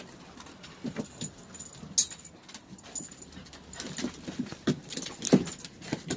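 A dog making short, irregular sounds, with a sharp click about two seconds in and louder ones near the end.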